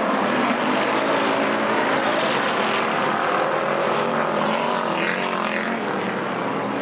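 Several pure stock race car engines running at racing speed on a dirt oval, a steady drone of overlapping engine notes.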